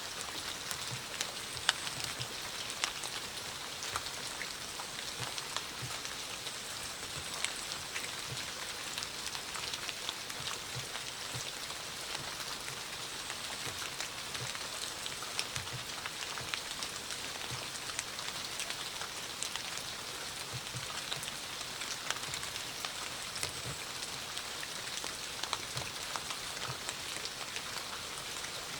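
Steady rain falling: an even hiss with many separate drops tapping close by and occasional soft, low thuds of heavier drops.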